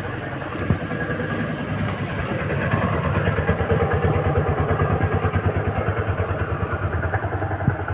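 A small engine running with a fast, even pulsing beat, growing louder about two seconds in.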